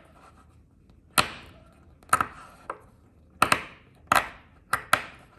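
Parts of a copper fidget slider and its magnets clacking together as they are handled and snapped into place: about eight sharp clacks, several in quick pairs.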